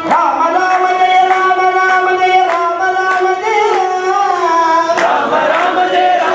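Devotional bhajan sung by men in long held notes, with tabla strokes keeping a steady beat of about two a second.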